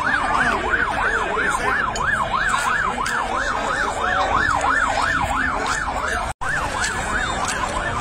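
Emergency vehicle siren in a fast yelp, sweeping up and down about four times a second, with crowd voices underneath. The sound cuts out for an instant about six seconds in.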